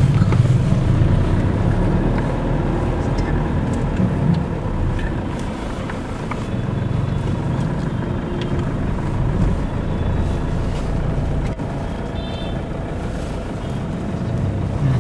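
Car engine and road rumble heard from inside the cabin as the car creeps along a busy street, with motorbikes and street noise around it. Late on there is a brief high-pitched tone.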